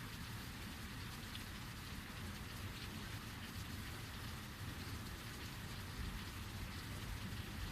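Heavy rain falling steadily, an even hiss of rain on surfaces with a low rumble underneath.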